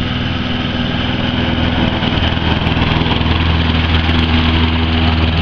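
Lawn mower's small engine running steadily, its throttle held wide open. It grows a little louder about two seconds in.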